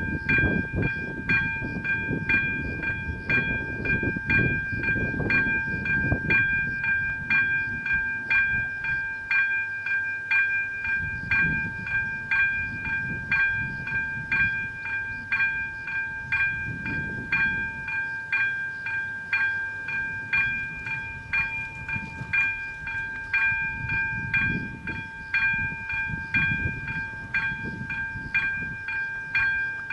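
Electronic bell of an AŽD 97 level-crossing warning signal ringing without pause at about two strokes a second, each stroke a bright ding over a continuous high tone: the crossing is closed for an approaching train. A low gusting rumble rises and falls underneath.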